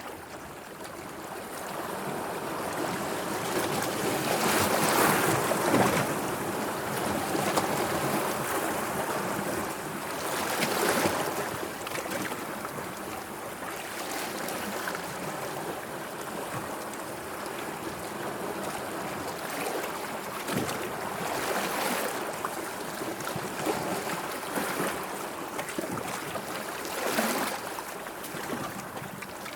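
Sea water washing and lapping steadily, with a stronger wave surge every several seconds.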